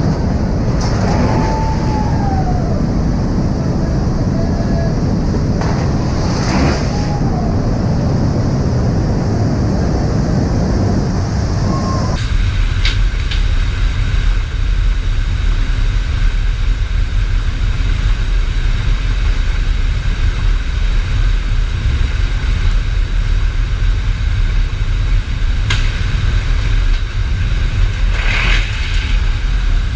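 Loud steady rumble of a C-17 cargo aircraft in flight, heard inside its cargo hold: engine drone and rushing air. About twelve seconds in it changes abruptly to a deeper rumble with the rear ramp open.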